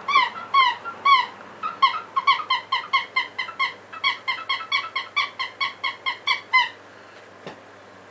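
A fast run of about two dozen short, high squeaks, each rising then falling in pitch. They quicken to about four a second, then stop suddenly, and a faint click follows near the end.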